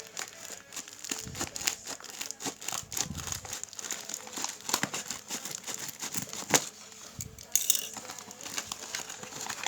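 Packaging being torn open by hand, with continuous crinkling and crackling and a brief tearing hiss near the end.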